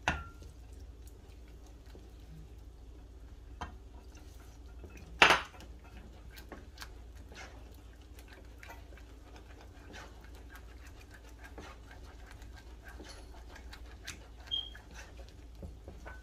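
A spoon clinking and scraping against a saucepan as béchamel sauce is stirred vigorously, with many small knocks and one louder knock about five seconds in.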